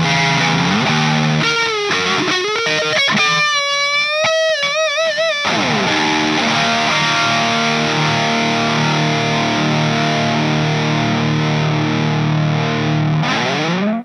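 Distorted electric guitar, a Gibson Les Paul: a short lead phrase with string bends and a held high note with wide vibrato, then a chord struck after about five seconds that rings out steadily and slides up in pitch just before it cuts off at the end.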